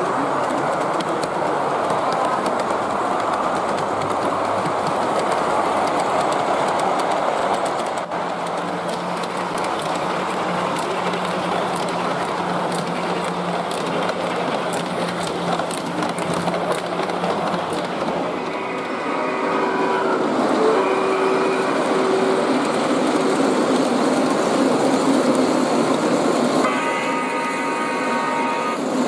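G-scale model trains running on layout track, a steady rush of wheels on rail. A sound-equipped model locomotive blows its electronic horn twice, about two-thirds through, then holds a longer blast near the end.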